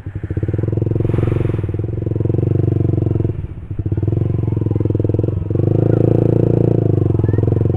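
Old Honda CB150's single-cylinder engine revved hard in long surges, dropping back briefly twice before its loudest push, as the bike is worked over soft sandy ground that the rider finds too hard to get through.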